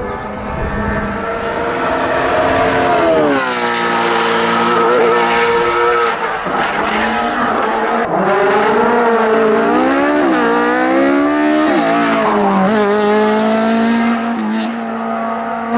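Racing car engine running hard. Its pitch climbs and drops several times through the stretch as the car goes through gear changes and lifts off the throttle.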